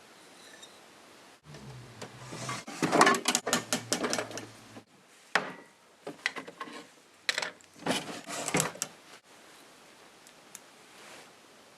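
A run of clattering knocks and clicks, like objects being handled, bunched in clusters from about a second and a half in until about nine seconds in, with a low hum under the first few seconds.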